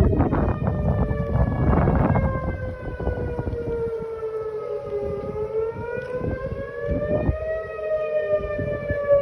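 Outdoor storm warning siren wailing, its pitch falling slowly, rising again about five seconds in, then falling once more; it is sounding for a severe thunderstorm warning with high winds. Wind buffets the microphone, heaviest in the first few seconds.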